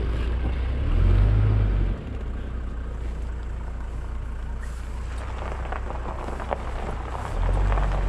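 Car driving, heard from inside the cabin: a steady low engine and road rumble that swells louder for about a second near the start and again near the end.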